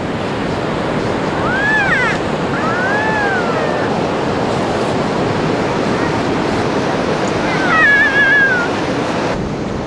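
Steady surf and wind noise on the microphone, with a few high gliding cries about two and three seconds in. About eight seconds in comes a louder wavering wail: a child imitating the cry of a stranded whale.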